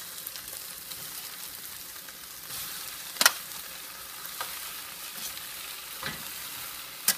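Onions and chicken sizzling in a stainless steel stockpot, with a few sharp clinks and knocks as browned chicken pieces are tipped into the pot from a glass dish; the loudest knock comes about three seconds in and another near the end.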